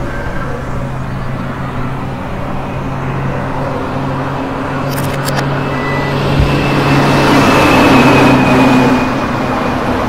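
Motorcycle engine running steadily, growing louder in the second half.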